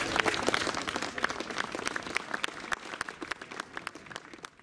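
A crowd applauding, the claps dense at first and thinning out as the applause fades away.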